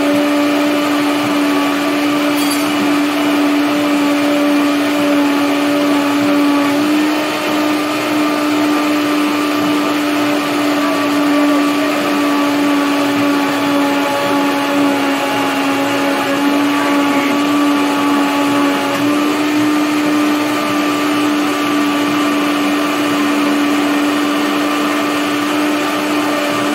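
High-speed blender motor running steadily on a thick tofu mixture, its tamper pushed down through the lid to keep the mix moving. The pitch shifts slightly a couple of times, and near the end the motor is switched off and winds down with a falling pitch.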